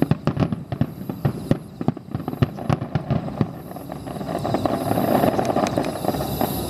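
Starmine aerial fireworks barrage: a dense volley of sharp bangs and crackles, several a second, for the first three seconds or so. The bangs then thin out to a few, and a steadier noise builds around five seconds in.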